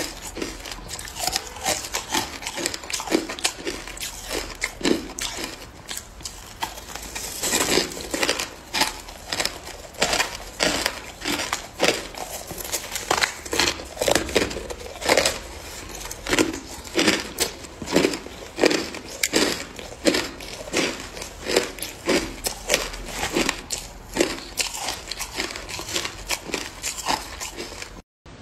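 Hard ice crunching between the teeth as a person bites and chews chunks of ice, a long run of crisp crunches about two a second, growing louder about eight seconds in.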